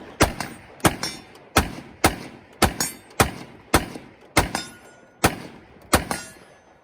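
Ten gunshots fired in a steady string, about one every two-thirds of a second, each followed by a short echo.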